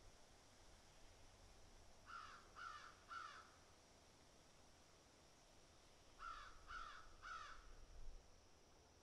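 American crow cawing faintly, in two runs of three caws about four seconds apart.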